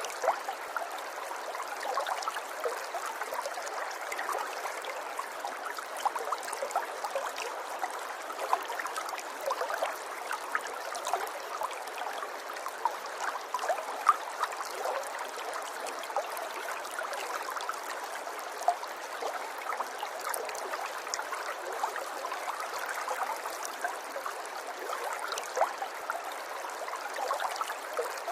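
River water flowing steadily, with many small, sharp splashes scattered through it.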